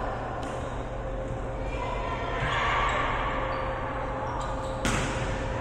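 Basketball game in a gym: steady hall noise of play and faint voices, with one sharp impact near the end.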